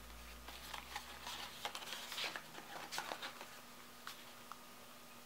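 Paper instruction booklet being handled: faint rustling and light taps of pages and packaging, busiest for the first three seconds, then two small clicks near the end.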